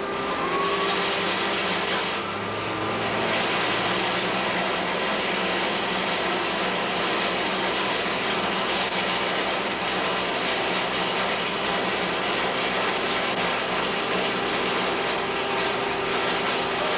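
Industrial hammer mill and its plant machinery running empty, a loud steady mechanical noise with a constant hum, with a short rising whine in the first second.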